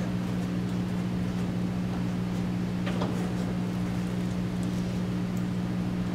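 A steady low electrical hum fills the hall, unchanging throughout, with a couple of faint clicks about three seconds in as the turnout gear is handled.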